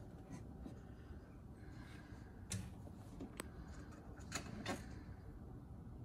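A kitten pawing and scrabbling at the side of a wooden curio cabinet, with about four light knocks or rattles against the wood in the middle seconds.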